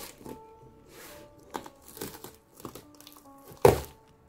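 Cardboard parcel being pulled open by hand: several short scrapes and tears of packing tape and cardboard flaps, with a sharp tear about three and a half seconds in. Soft background music underneath.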